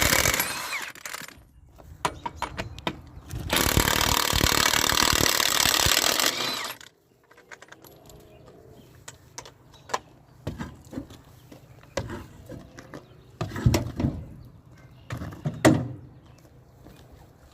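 A loud power tool runs in two bursts, the second about three seconds long and cutting off suddenly, followed by scattered metal knocks and clanks over a low steady hum.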